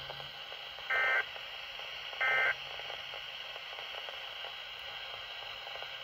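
Weather radio's speaker sounding two short buzzy bursts of SAME digital data tones, about a second apart, over steady radio hiss. Bursts this short, right after the spoken bulletin ends, are the end-of-message code that closes a weather alert broadcast.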